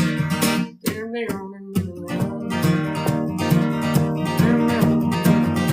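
Country song's instrumental passage: strummed acoustic guitar with a steady beat.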